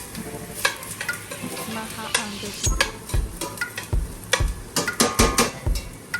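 Onion, garlic, pimento and thyme sizzling in hot oil in a pot while a spoon stirs and scrapes through them. From about two and a half seconds in come repeated heavy knocks and clatters against the pot.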